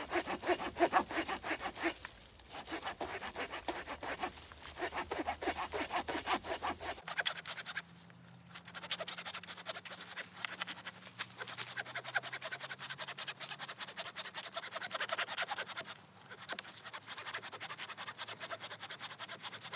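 Cheap folding hand saw cutting through a dead fallen branch, with steady back-and-forth strokes rasping in the wood. The sawing breaks off briefly about 2, 8 and 16 seconds in.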